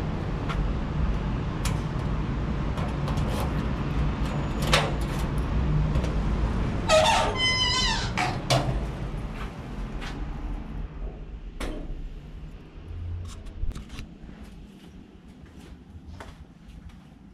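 Key clicking in a door lock, then the door swinging open with a squeaky creak of its hinges about seven seconds in. A steady low outdoor rumble fades after that, leaving only small clicks and knocks.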